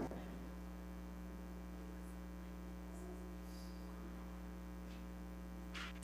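Steady low electrical mains hum with its overtones, carried in the audio feed, and a faint brief rustle near the end.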